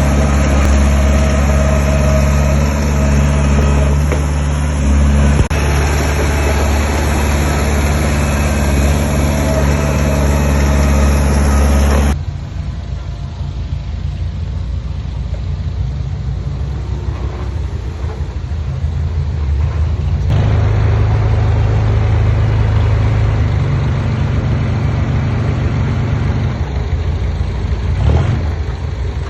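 Heavy diesel engines of earthmoving machines running. A loud engine with a steady deep hum cuts off abruptly about twelve seconds in, giving way to a quieter engine that grows louder again after about twenty seconds.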